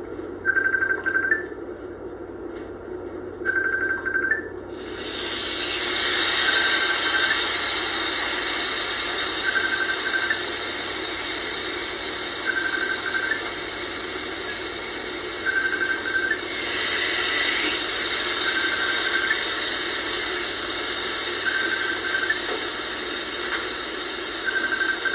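A phone ringing, a short beeping ring tone repeating about every three seconds: an incoming call. About five seconds in, frying starts sizzling and keeps going under the rings.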